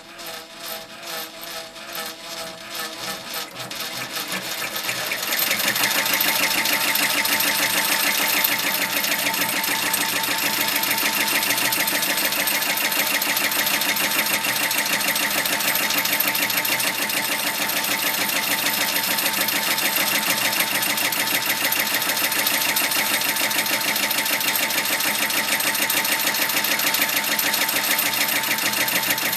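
Brother PR1000e ten-needle embroidery machine stitching: it starts with slow, separate strokes that speed up over about five seconds, then runs fast and steady. Once it is up to speed, a steady squeak rides over the stitching, the sign of a squeaking shaft.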